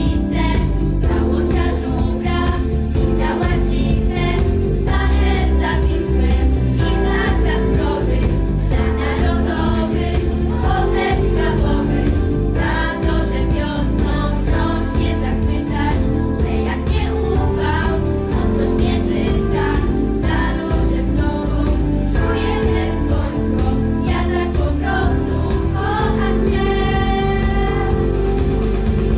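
Live music from an amateur band: several voices singing together over a steady instrumental accompaniment.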